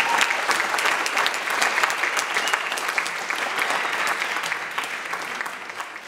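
Audience applauding after a dance performance, the clapping gradually fading toward the end.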